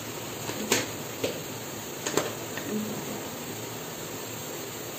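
Steady soft hiss of a pan of onions and spice powders cooking on a gas stove, with a few faint clicks in the first half.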